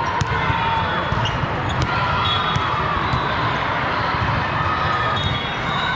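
Athletic shoes squeaking on a gym floor, several short squeals, with a few sharp smacks, over the steady hubbub of a busy sports hall.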